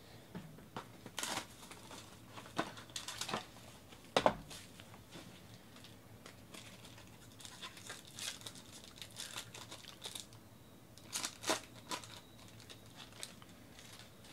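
Foil trading-card pack from 2019 Topps Tier One Baseball being torn open and crinkled by hand: irregular crackling tears, with a sharp rip about four seconds in and another loud flurry about eleven seconds in.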